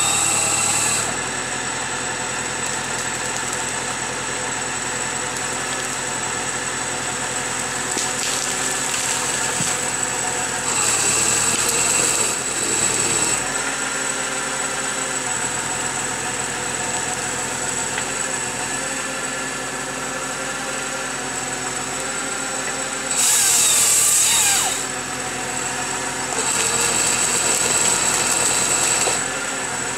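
Valtra forestry tractor's engine running steadily while driving the hydraulics of a crane-mounted Farmi 35 energy grapple. Three times a louder hiss rises over the engine for a couple of seconds as the crane and grapple work.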